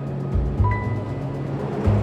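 Background music: a bass line under a steady ticking beat, with a swell that builds and cuts off near the end.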